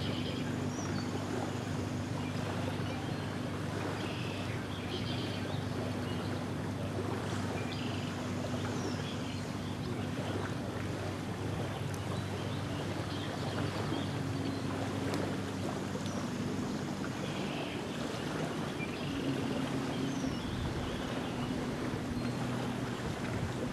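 Small waves lapping on a sandy lake shore, with wind on the microphone and a steady low drone of a distant engine whose pitch shifts a little partway through. Scattered short bird chirps.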